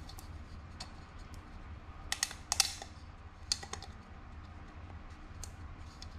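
Light clicks and taps from handling the plastic oil filter housing cap while an oiled new seal is worked into its groove: a quick cluster of clicks about two seconds in, another a second later, over a low steady hum.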